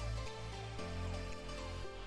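Background music with a steady bass line, the chords changing about once a second.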